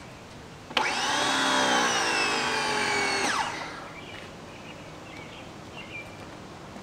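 Ryobi electric pressure washer switched on: its motor starts suddenly, runs for about two and a half seconds with its pitch slowly sagging as pressure builds, then shuts off abruptly, as the pump reaches pressure with the trigger closed.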